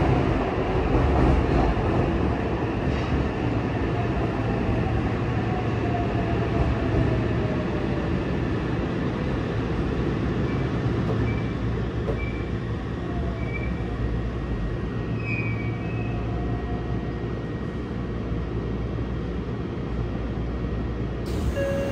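Running noise inside a Yokohama Municipal Subway 3000S-series car with Mitsubishi IGBT-VVVF drive: a steady rumble of wheels on rail in a tunnel, with faint thin tones above it.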